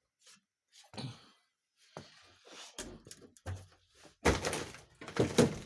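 Knocks and thuds from working at a car door's window crank by hand. A few light knocks come first, then two heavy thuds near the end.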